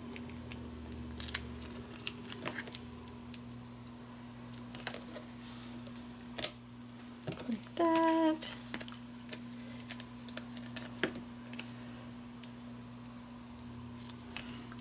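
Scattered small clicks and crinkles of foam adhesive dots being peeled off their backing sheet and pressed into place by hand, over a steady low hum. A brief hummed voice sound about eight seconds in.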